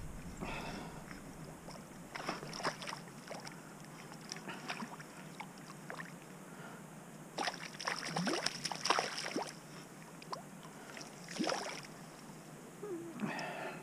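Water splashing and sloshing in short irregular bursts as a trout is let go by hand into shallow water and swims off, the loudest splashing a little past the middle.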